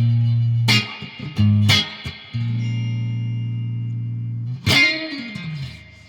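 Electric guitar played with a clean tone. It plays a few picked low notes, one of them held for about two seconds, then a note that slides down in pitch near the end.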